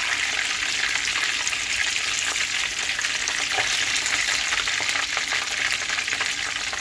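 Kingfish steaks shallow-frying in hot oil in a frying pan: a steady sizzle with fine crackling, the fish fried brown on both sides and ready to come out.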